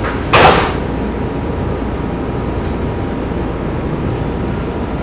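Steady rumble and hum inside an MBTA Blue Line Type 4 subway car, with a short, loud hiss about half a second in.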